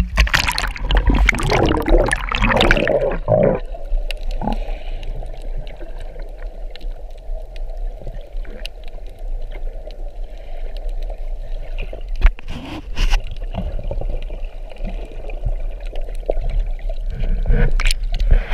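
Sea water heard underwater: loud splashing and bubbling for the first few seconds as the microphone goes under, then a muffled steady wash with a low rumble and a few sharp knocks, and splashing again near the end as it comes back to the surface.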